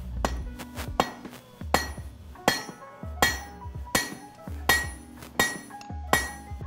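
Blacksmith's hand hammer striking red-hot steel on an anvil in a steady rhythm, about nine blows, one every three-quarters of a second. Each blow rings on after the strike.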